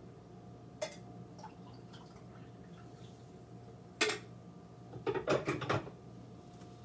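Crockery and cutlery handled at a kitchen counter while making coffee. A light click about a second in, a sharp knock of crockery set down about four seconds in, then a run of quick clinks and rattles, all over a steady low hum.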